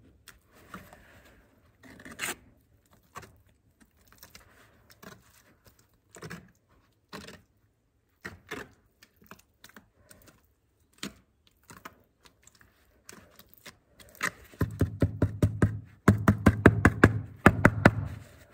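Trowel scraping and slapping a thick mortar paste onto a fireplace wall in scattered strokes. Near the end comes a fast, loud run of even strokes, about four or five a second, as the paste is worked on.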